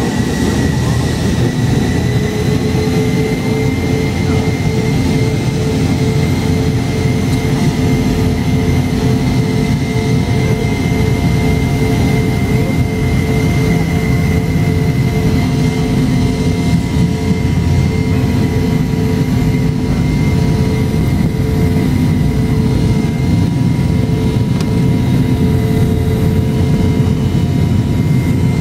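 Jet airliner's engines heard from inside the cabin: a steady low rumble with a high whine on top, which rises slightly about two to three seconds in, as the plane rolls along the runway.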